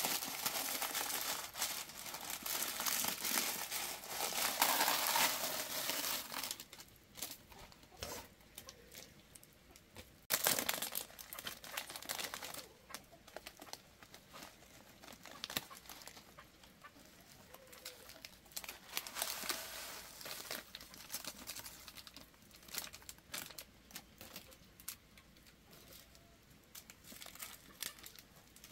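Husks being peeled and torn off boiled bamboo shoots by hand, crinkling and tearing. The rustle is dense for the first six seconds or so, then comes in scattered crackles, with a sharper tear about ten seconds in.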